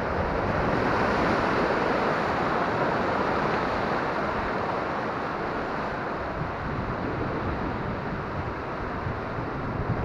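Ocean surf washing in over rocky shoreline and rushing through a gully, swelling about a second in and then easing off, with wind rumbling on the microphone.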